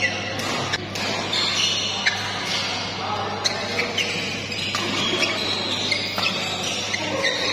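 Badminton rackets striking the shuttlecock in a doubles rally: a string of sharp hits about a second or more apart, with short high squeaks of shoes on the court.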